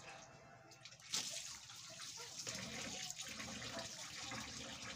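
Kitchen tap running into a stainless-steel sink while hands wash something under the stream. The water sound starts about a second in and then runs steadily.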